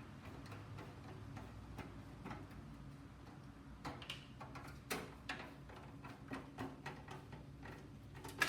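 Scattered small clicks and ticks of a case fan being unscrewed from a PC case, getting busier about halfway through, with one sharper click near the end.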